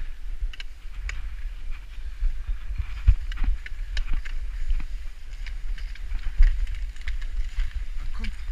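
Cross-country skis and poles on packed snow: skis sliding with scattered short clicks and crunches, over a steady low wind rumble on the action-camera microphone.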